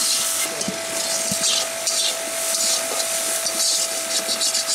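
Metal spatula scraping and stirring greens around the bottom of a kadai during stir-frying, in a series of uneven scraping strokes.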